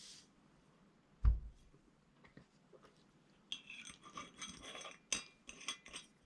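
A soft thump, then a quick run of light clinks of glass or ceramic tableware, each with a brief ringing.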